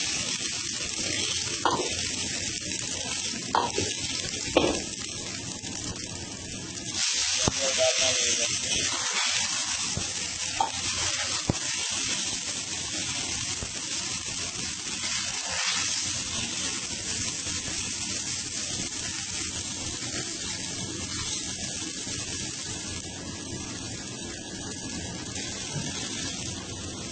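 Food frying in hot oil in a wok, a steady sizzle, with a metal ladle knocking and scraping against the pan several times in the first dozen seconds. The sizzle swells about seven seconds in, then settles to an even hiss.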